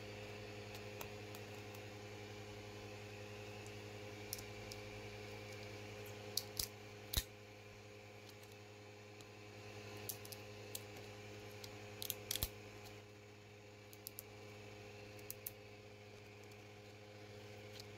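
Scattered sharp clicks and small snaps of thin PLA plastic as a 3D-printed stencil is pried up with fingernails and peeled off a printer bed covered in painter's tape, over a steady low hum.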